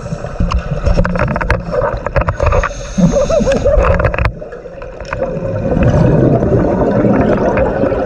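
Underwater scuba sounds: a diver's regulator breathing and exhaled bubbles gurgling and rumbling. In the first half, clicks and knocks against the camera housing while an octopus arm grips it. About four seconds in, the sound cuts to a steadier rush of exhaust bubbles.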